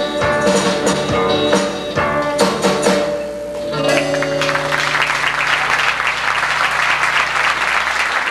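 Acoustic band of guitars and hand percussion strumming the closing bars of a song and ending on a held chord. From about four and a half seconds in, the audience applauds.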